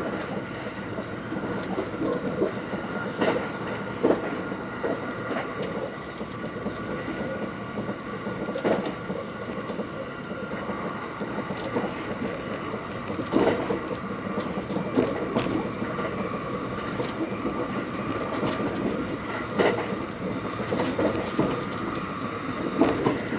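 Thunderbird limited-express train running at high speed, heard from inside the passenger cabin: a steady rumble and rushing noise with occasional sharp knocks from the wheels and track.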